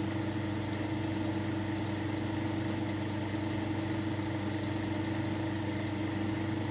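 South Bend lathe running steadily, its motor and drive giving an even hum with a few steady tones, while a small steel screw is turned.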